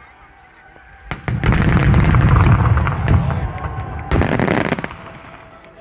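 Aerial fireworks shells bursting: a sharp bang about a second in, then a couple of seconds of rapid overlapping booms, and another sharp bang near the four-second mark that dies away.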